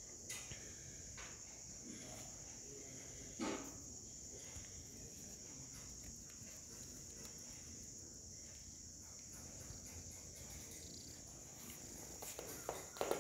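Steady high-pitched chirring of insects, like crickets, with a single short knock about three seconds in. Near the end, a quick flurry of bumps and rustles as a kitten scrambles into a pile of cloth strips.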